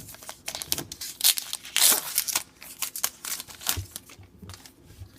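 Trading-card pack wrapper being torn open and crinkled, with cards handled, in a run of irregular crackles; the loudest rip comes about two seconds in.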